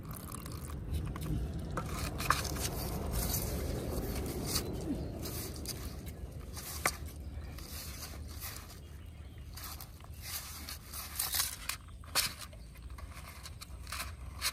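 Fingers mixing flour bait dough in a stainless steel plate: irregular scrapes and rustles of dough and fingertips against the metal, with a few sharp clicks.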